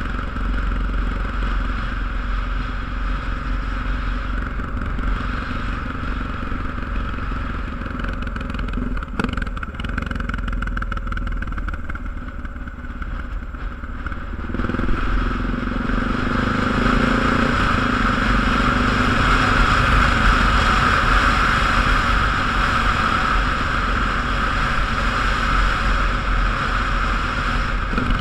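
Vehicle engine and road noise while driving. About halfway through, the engine note rises and the sound grows louder, as if the vehicle is accelerating.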